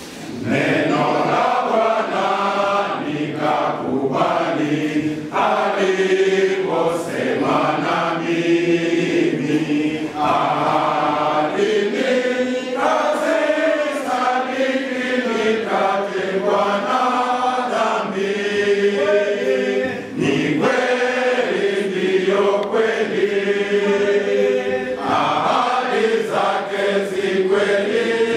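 A men's choir singing a Swahili hymn together, with brief breaks between sung lines.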